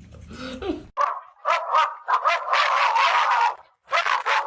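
A dog barking in short yaps, with one longer held call in the middle.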